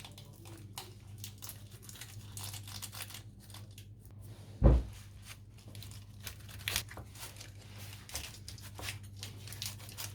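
Freshly baked pizza being sliced: the crisp crust crackles and scrapes in many short bursts as the blade cuts through, with one loud dull thump a little under halfway through. A low steady hum runs underneath.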